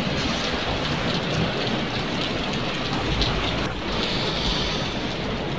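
Rain pouring steadily onto a wet street and pavement, an even unbroken hiss.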